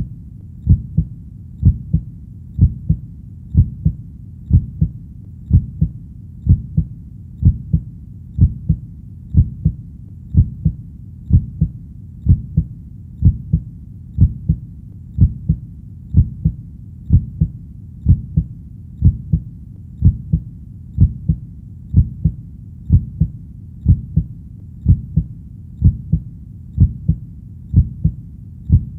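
Heartbeat sound: a steady, even lub-dub, each beat a low double thump, about one beat a second.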